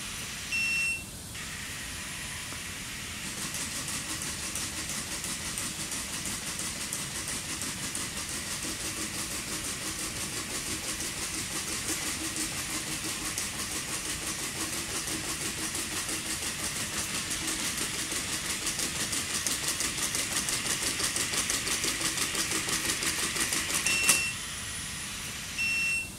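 Unitree A1 quadruped robot trotting: rapid, even tapping of its feet with a faint steady whir from its leg motors, starting about three seconds in. Short high beeps sound near the start and again near the end.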